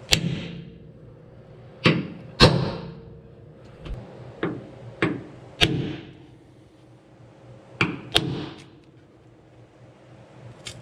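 Hammer blows on metal: about eight sharp strikes at uneven intervals, some in quick pairs, each ringing briefly, as a hole spot is marked on the van's metal.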